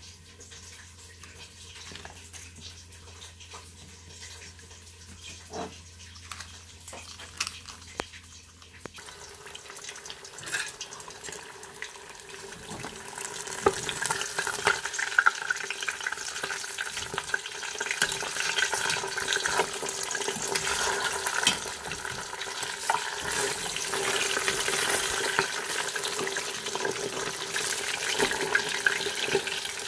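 Whole fish frying in hot oil in a steel pot: a dense sizzle full of small crackling pops, starting suddenly about nine seconds in and growing louder a few seconds later. Before it, a quieter stretch with a low steady hum.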